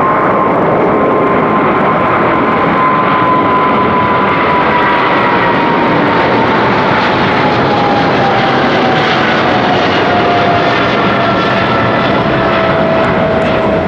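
Boeing 777F's twin GE90 turbofan engines at takeoff thrust, a loud steady jet roar with a fan whine that falls steadily in pitch as the aircraft passes by.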